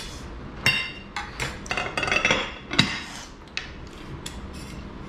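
Steel spoon knocking and clinking against a stainless steel bowl as food is dished out: a quick run of sharp metallic knocks that ring briefly, bunched in the first three seconds, then a few lighter ticks.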